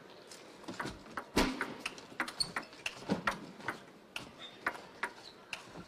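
Table tennis rally: the celluloid ball clicking off the players' bats and the table in a quick, irregular string of sharp ticks, about three a second.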